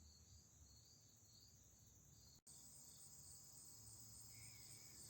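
Near silence, with faint steady high-pitched insect trilling, crickets, in the background.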